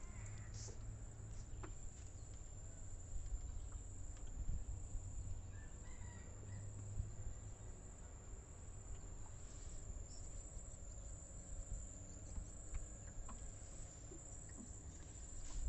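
A steady high-pitched insect drone from the riverbank, over a constant low rumble of wind and water.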